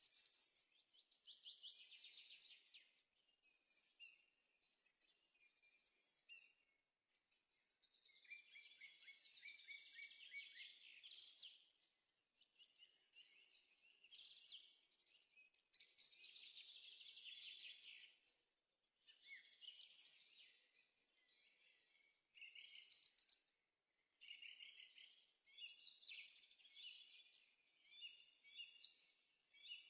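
Faint songbird singing: a run of trilled, chattering phrases of a few seconds each, one after another with short pauses.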